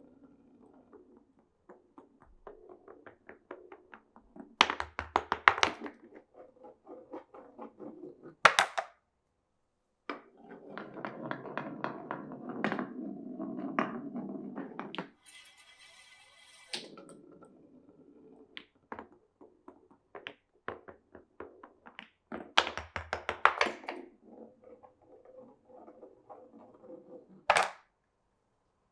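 Glass marbles rolling and clacking through a wooden marble run, with sharp knocks as they drop onto blocks and rails. About ten seconds in comes a steady rolling stretch of about five seconds, followed by a brief high-pitched rattle.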